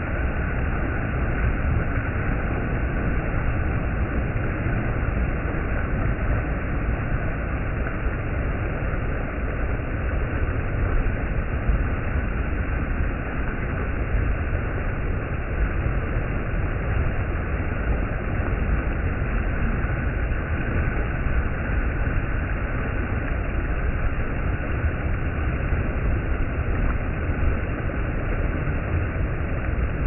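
Mountain stream water rushing and splashing over rocks close to the microphone, a steady, even rush with a deep low end.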